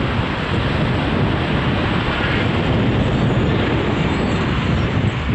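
Diesel engine of a Doosan DX225LC crawler excavator running as the machine tracks slowly across the site, a steady low rumble without sharp knocks.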